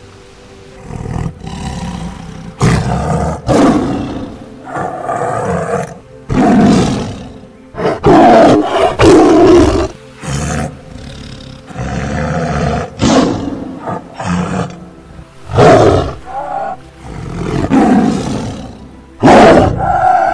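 A tiger roaring over and over, starting a couple of seconds in: about a dozen loud calls spaced one to two seconds apart.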